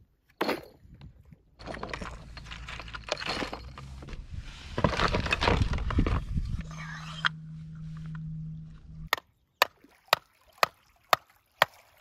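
Plastic tackle-box trays clattering as they are rummaged through. Then a mallet drives a plastic rod-holder stake into gravelly shore ground: six sharp knocks about half a second apart near the end.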